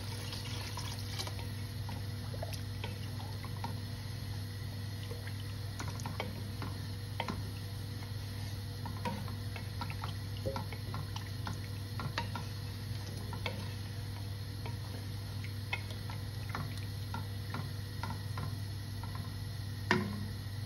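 Water poured from a copper jug into a pot of partly cooked vegetables, adding the cooking water for the rice. The pour ends about a second in. A wooden spatula then stirs the liquid, with scattered small clicks over a steady low hum and one sharp knock near the end.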